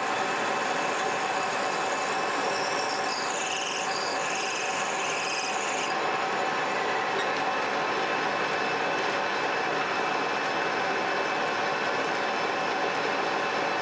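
Metal lathe running steadily with a small brake piston spinning in the chuck. From about three to six seconds in, a higher-pitched cutting sound joins as the tool works the piston, and it stops suddenly.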